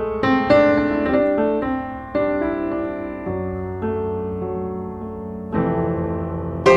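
Background piano music: slow chords struck one after another, each dying away before the next.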